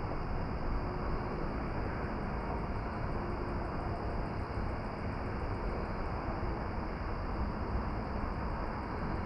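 Steady, even rushing noise, heaviest in the low end and unchanging throughout, with no distinct events.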